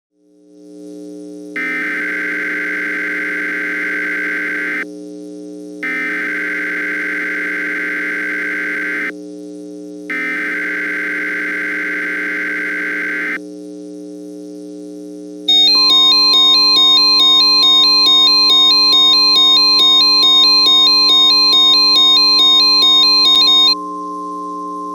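Emergency Alert System tones over a steady synth drone. The digital header data sounds three times, each burst about three seconds long with short gaps between. Then the attention signal begins: a steady single tone with a loud warbling multi-tone alarm over it for about eight seconds. The alarm stops near the end and the steady tone carries on.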